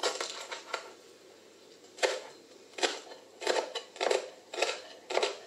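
Chef's knife chopping a lemongrass stalk on a plastic cutting board, each stroke a sharp knock of the blade on the board. A quick run of chops opens, then after a pause of about a second the chops come singly or in short runs, roughly every half second.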